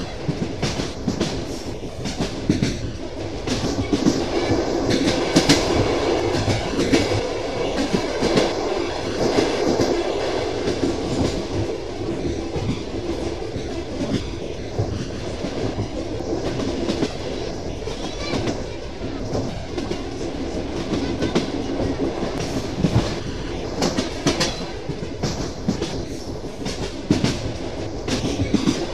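Train wheels clattering over rail joints under a steady running rumble, heard from a carriage window of a moving train. Sharp clicks come in clusters through the first several seconds and again near the end, with a smoother stretch in between.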